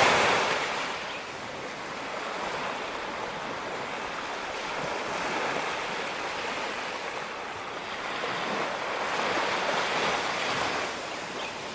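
Ocean waves washing onto a beach. A breaking wave fades in the first second, and another swells and washes in near the end.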